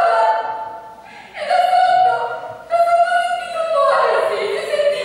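A single voice singing slow, held notes, with a new phrase starting about every one and a half seconds and the pitch falling near the end.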